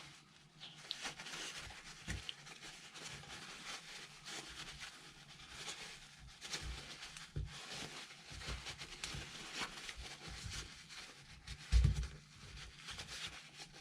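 Faint rustling and scratching of a paper towel being pushed into the open faucet valve body to soak up the water inside, with a few soft low bumps, the loudest about twelve seconds in.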